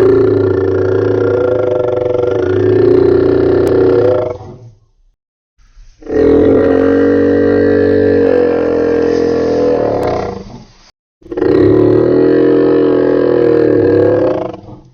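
Dinosaur roar sound effects: three long, wavering roars of about four seconds each, separated by short silences.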